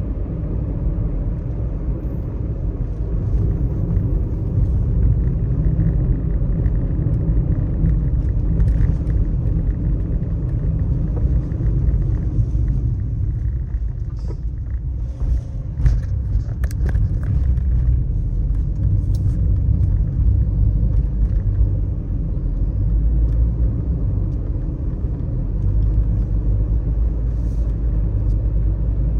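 Steady low rumble of a car driving along the road, with a few faint ticks between about 14 and 20 seconds in.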